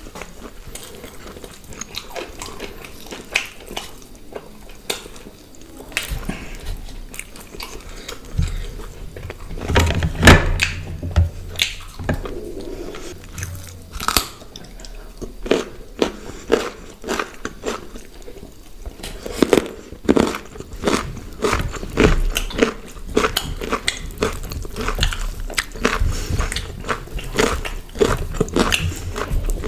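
Close-up eating sounds of grilled chicken and paratha: irregular biting, chewing and wet mouth smacks, with a few crunches.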